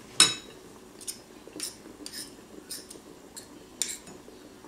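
Metal spoons clinking and scraping against a glass bowl as fried corn is wiped off into it. One sharp, loud clink comes about a quarter second in, then lighter taps follow about every half second.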